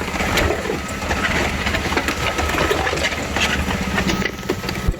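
Engine of an on-site concrete mixer truck running steadily, with machinery rattling and clattering over it.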